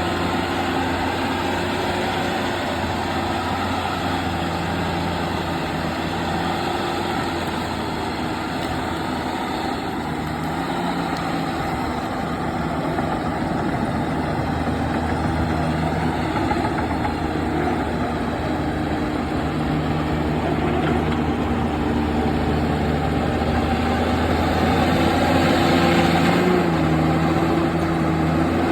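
Diesel engine of a Komatsu D70LE crawler bulldozer running steadily. It grows a little louder about three-quarters of the way through, then eases back.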